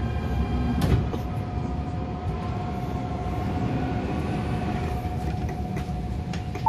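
Adtranz-built MTR A-Train electric multiple unit braking into a platform: a steady electric whine from its traction equipment over a low running rumble, with one sharp knock about a second in.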